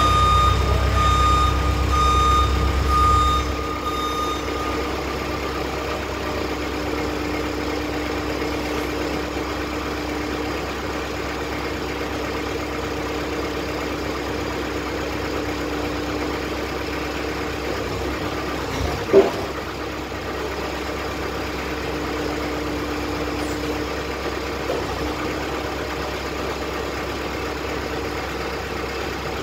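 SkyTrak 10054 telehandler's diesel engine running, its reversing alarm beeping about once a second for the first four seconds while the engine works harder, then idling steadily. A single sharp knock about 19 seconds in.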